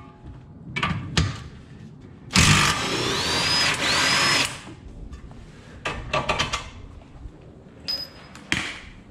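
Cordless impact wrench run for about two seconds on the lower bolt of a Honda Civic's rear shock absorber, its motor pitch rising twice during the run. Short metallic clanks and clicks of tools and parts being handled come before and after it.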